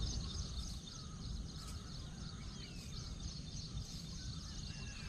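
Outdoor ambience: wind rumbling on the microphone under a steady high chirring of insects, with a couple of faint bird calls, one about two and a half seconds in and one near the end.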